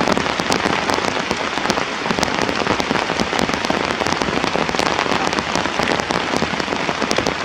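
Rain falling steadily, with many sharp individual drop hits through the steady hiss.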